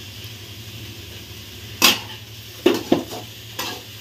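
Shredded cabbage and onion sizzling steadily in a steel kadai, with a spatula knocking and scraping against the pan four times in the second half as the vegetables are stirred.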